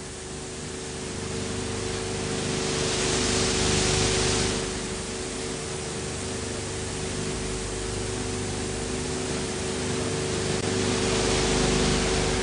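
Steady hiss with a low, even hum and no other sound: background noise of an old film's soundtrack transfer. The hiss grows brighter about two and a half seconds in and eases back about two seconds later.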